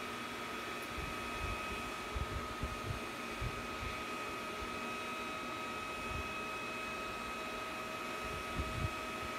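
A small motor's steady whir with a thin high whine, and soft low bumps now and then.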